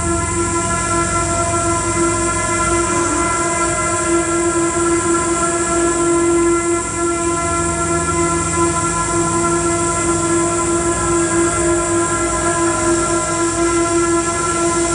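Experimental live electronics: a loud, dense drone of several steady held tones over a hiss, produced on a tabletop rig of knob-covered electronic devices. A lower tone joins about halfway through.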